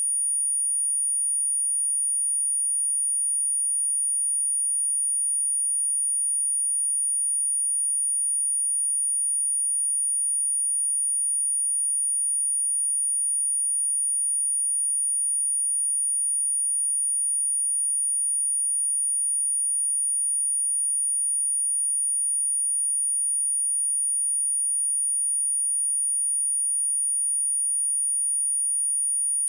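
A steady, unbroken 9521 Hz sine-wave test tone, a single high-pitched whistle with no other sound, as used to test a speaker or to shake water and dust out of it.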